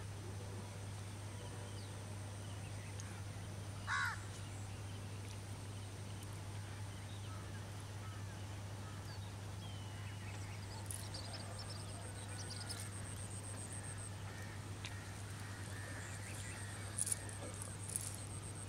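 Countryside ambience of birds calling, with one louder call about four seconds in. Underneath runs a steady low hum and a faint high-pitched whine, and a few sharp clicks come near the end.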